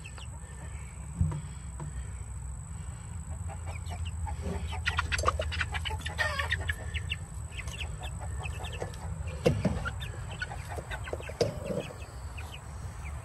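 Young half-grown chickens peeping and clucking in short, scattered calls, busiest about five to seven seconds in, over a low steady rumble. A couple of thumps sound, the loudest about nine and a half seconds in.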